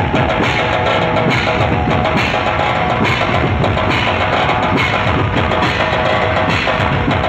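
Loud, drum-heavy procession music: fast, dense drum beats with a short repeating melodic phrase over them.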